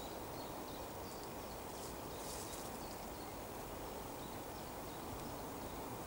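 Woodland ambience: a steady low hiss with faint, short, high bird calls scattered through it.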